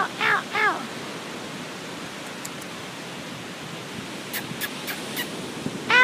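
A gull calling: a quick series of two or three arching notes, each rising then falling in pitch, in the first second, then steady surf hiss with a few faint ticks, and another call beginning right at the end.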